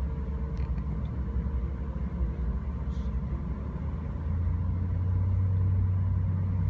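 Ferry's engines running as a steady low rumble, heard from inside a parked car on the car deck; about four seconds in a low hum comes up louder.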